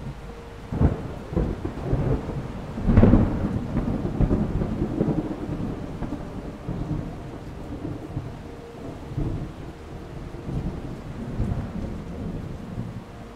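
Thunder over steady rain: a sharp crack about a second in, a louder clap about three seconds in that rolls on for a few seconds, then fainter rumbles near the end.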